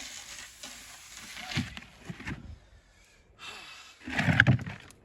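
Rough building stones scraping and knocking against each other as they are handled and set into a wall. The loudest scrape and knock comes near the end.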